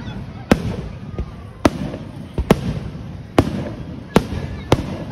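Aerial firework shells bursting in quick succession: about eight sharp bangs in five seconds, each followed by a rumbling echo.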